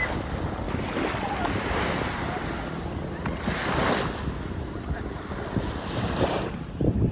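Small waves washing up and drawing back over a sandy beach, swelling a few times a couple of seconds apart, with wind rumbling on the microphone.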